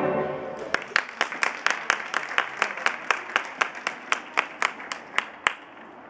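Audience applause with loud, sharp hand claps close by, clapping steadily about four times a second and stopping a little before the end, as the tail of the skating music dies away at the start.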